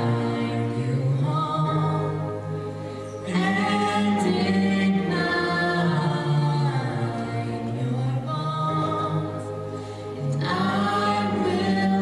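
High school show choir singing in parts, holding sustained chords in phrases that fade and come back louder, about three seconds in and again about ten seconds in.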